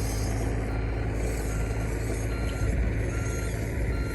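Axial SCX24 micro RC crawler's small electric motor and gears whirring steadily as the truck crawls, over a steady low rumble.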